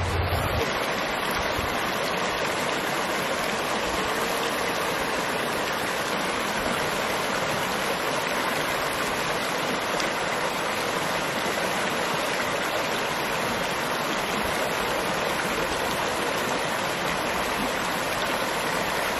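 Shallow creek water running and splashing over rocks, a steady even rush of water.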